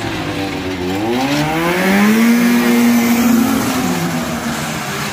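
1994 Ski-Doo Safari L snowmobile's two-stroke engine revving as it is ridden on asphalt: the pitch climbs from about a second in, holds high for a second or so, then drops back toward the end.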